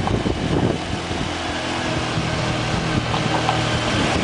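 Motorcycle engine running at a steady pace while riding, under a hiss of wind and road noise.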